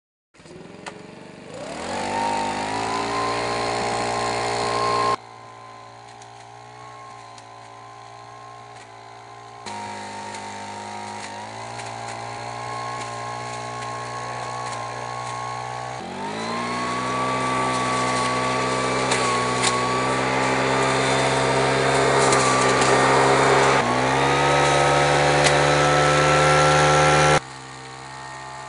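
Propane-powered LEHR leaf blower/vacuum, a small four-stroke engine, starting and revving up to a steady whining run. Its speed and loudness shift in sudden steps several times, dropping back about five seconds in, climbing again around 16 and 24 seconds, and falling away sharply near the end.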